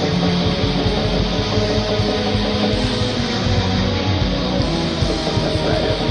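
Heavy metal music: distorted electric guitars played over dense, fast drumming, loud and unbroken.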